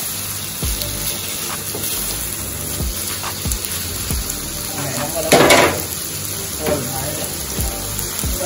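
Food frying and sizzling in a pan as a steady hiss, with soft knocks about once a second. A louder rush of sizzling comes a little past halfway.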